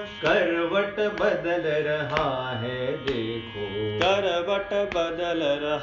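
Music from a Hindi patriotic song: a melodic line that glides and wavers in pitch, over drum strokes about once a second.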